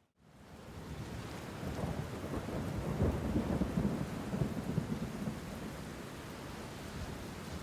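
Steady rain with a rumble of thunder that swells from about two seconds in and rolls on for a few seconds. The sound fades in from silence at the very start.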